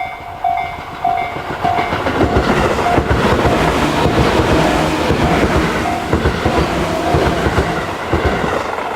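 Japanese level-crossing warning bell ringing in a slow, even rhythm, a little under two dings a second, on the Tobu electronic 'sound C' slow-tempo pattern. From about two seconds in, a train passes over the crossing, and its rumble and the clatter of wheels over the rail joints rise above the bell, then ease off near the end.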